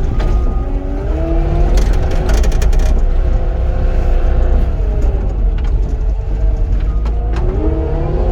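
Cat 259D compact track loader's diesel engine running under load, its pitch rising about a second in, sagging around the middle and rising again near the end as the machine works, with scattered clanks and rattles from the machine.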